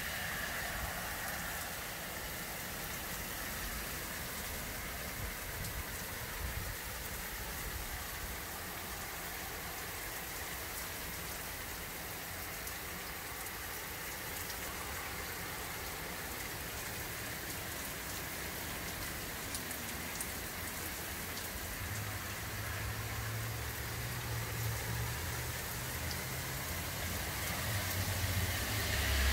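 Heavy rain falling steadily, an even hiss of drops on grass, pavement and foliage. A low rumble comes in over the last several seconds and grows louder.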